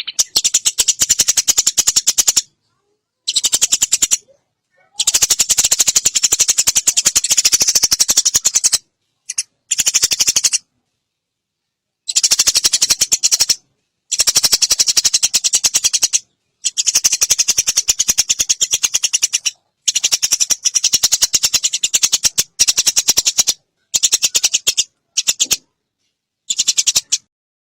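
Eurasian tree sparrow chattering: long runs of very fast, high, repeated notes in bursts of one to four seconds, broken by short silences.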